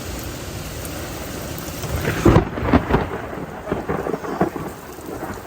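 Steady hiss of heavy rain, broken about two seconds in by a loud thunderclap that crackles and rumbles on in several sharp peaks for about two seconds.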